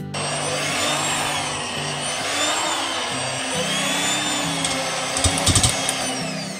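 Electric hand mixer with spiral dough hooks kneading stiff yeast donut dough in a stainless steel bowl: the motor whines steadily, its pitch wavering as the hooks drag through the dough. It gives a few sharp knocks about five seconds in, then winds down near the end. The dough is close to fully kneaded.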